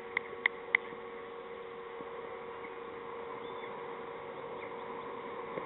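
Open-air field ambience with a steady low hum. Three short, high chirps fall in the first second.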